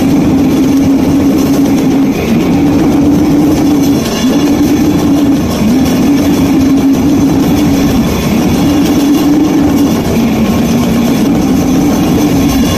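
Loud, raw goregrind rehearsal recording: a dense wall of heavily distorted guitar and drums, with a droning low note that bends and shifts every second or two.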